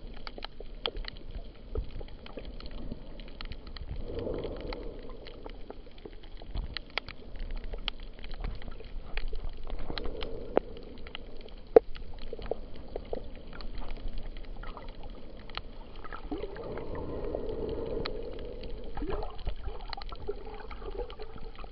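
Underwater ambience over a shallow reef: a muffled wash of water that swells three times, peppered with scattered sharp clicks and crackles, one click louder than the rest about twelve seconds in.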